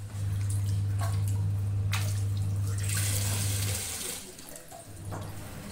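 Tap water running and splashing during washing, over a low steady hum that stops about four seconds in.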